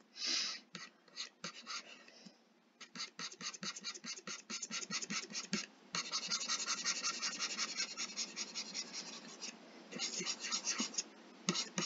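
Stylus scratching across a graphics tablet in quick shading strokes: short separate strokes at first, then a longer run of fast, steady scratching from about six seconds in, pausing briefly near ten seconds.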